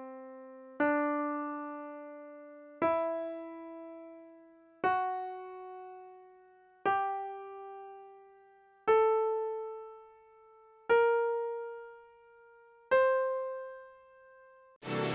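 Piano playing the C Lydian flat-seven (acoustic) scale upward one note at a time, each note struck about every two seconds and left to ring and fade. Near the end a full chord built from the scale is struck.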